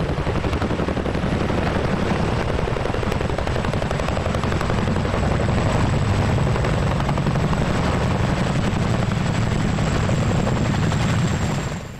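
Chinook helicopter's rotors beating steadily in a rapid, loud chop, fading up at the start and dropping away near the end.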